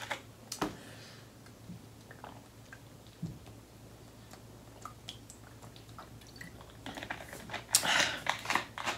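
Close-miked eating sounds: chewing and swallowing with small wet clicks, and gulps from a plastic water bottle about midway. Louder breathy mouth sounds come near the end.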